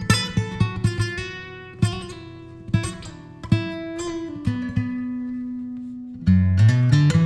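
Instrumental music: a plucked acoustic guitar playing single notes that ring and fade, with one long low note held near the middle, then louder, fuller playing with bass notes from about six seconds in.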